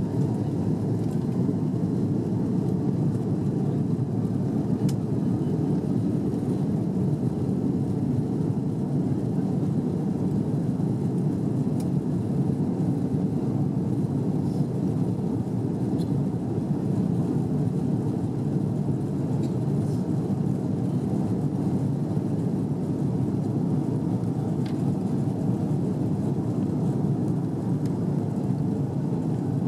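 Steady low cabin rumble inside an Airbus A330 airliner as it taxis, with the engines at low taxi power and the ground roll going on; the level stays even, with no build-up of takeoff thrust.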